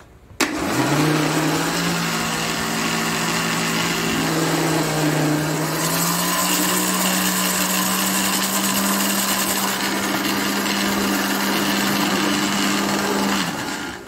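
Electric blender with a stainless steel jug beating three eggs. The motor starts about half a second in, winds up quickly and runs steadily, rises a little in pitch about six seconds in, and cuts off shortly before the end.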